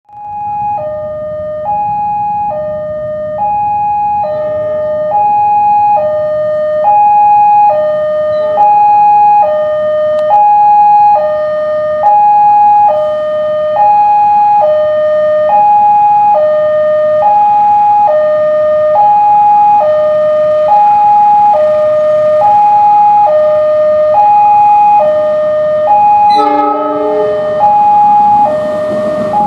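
Electronic railway warning alarm sounding a steady two-tone hi-lo signal, about one high-low cycle per second, as a train approaches. A brief lower note cuts in near the end, and the rumble of the arriving train starts to build at the very end.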